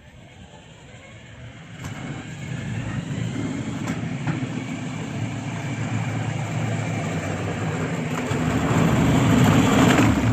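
Remote-control motorized cooler driving on its high speed setting, carrying a full load of sodas and ice. Its electric drive motors run and its wheels roll over the ground, growing louder as it approaches, then cutting off near the end as it stops.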